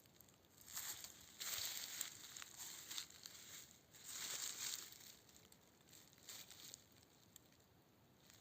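Faint rustling and crinkling noise in a few bursts over the first five seconds, quieter after that.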